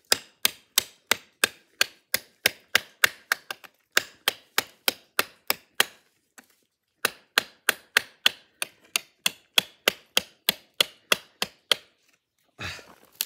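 A handle-less Spyderco high-impact ceramic knife blade chopping into hard wood: rapid sharp strikes, about three a second, in two runs with a short pause about six seconds in.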